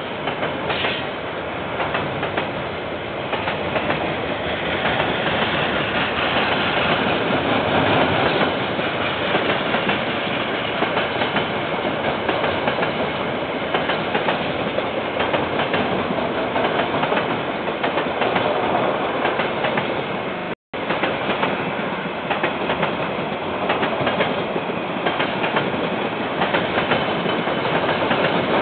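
Train wagons rolling past, with a steady rumble and a continuous clatter of wheels over the rails. The audio cuts out for an instant about two-thirds of the way through.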